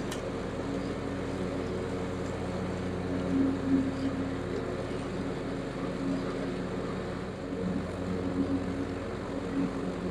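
John Deere X350R ride-on mower's Kawasaki V-twin engine running steadily under load while mowing grass, the cutting deck engaged and collecting into the rear grass box.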